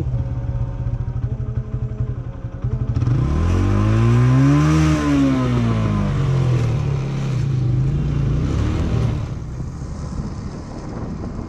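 Motorcycle engine running on the move. Its pitch rises about three seconds in, peaks, and falls off again a couple of seconds later, with wind rushing on the microphone.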